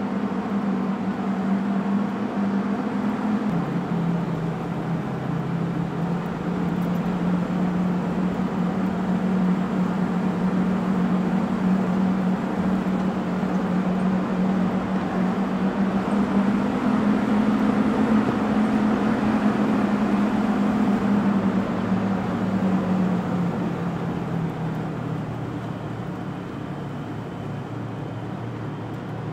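Vehicle engine running with tyres rolling over a gravel dirt road, heard from inside the vehicle. The engine note drops a few seconds in, rises around the middle and falls away again in the last third.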